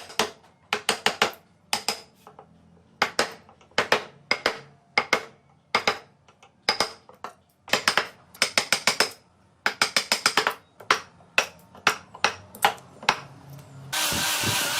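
Mallet blows on a carving chisel cutting into wood: sharp knocks in quick irregular bunches of two to five. Near the end a power tool starts running.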